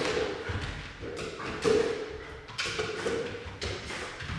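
Irregular thumps and taps, about five or six over a few seconds, as a dog moves about and noses among scent-sample stands on a hard floor.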